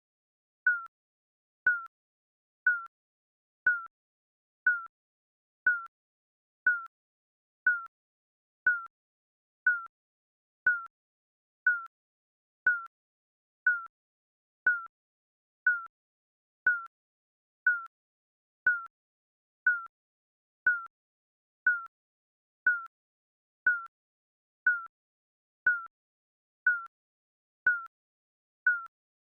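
Digital countdown timer beep, one short electronic tone about once a second. Each beep is slightly falling in pitch and dies away quickly, with silence between.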